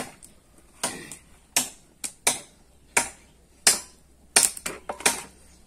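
Small wood fire crackling with sharp, irregular pops, some half a second apart and a quick run of several about four seconds in; the wood is burning after being rained on.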